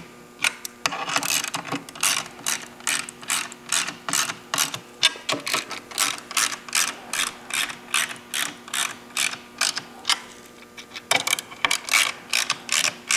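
Ratchet wrench clicking in quick, even strokes, about three a second, as nuts are run down onto bracket bolts; it stops briefly about ten seconds in, then starts again.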